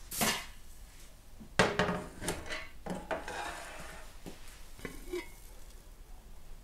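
A heavy metal pot being handled with a long-handled oven fork. It clanks and scrapes as it is set down on a metal counter, with the loudest knock about a second and a half in, then lighter metal clinks near the end as the lid comes off.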